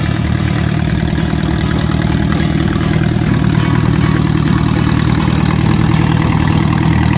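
Old farm tractor's engine running steadily at low speed, with an even, rapid firing beat, growing a little louder about halfway through as the tractor drives closer.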